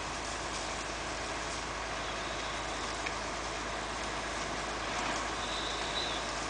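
Steady rumble of heavy diesel engines running, typical of fire appliances idling at a fire scene.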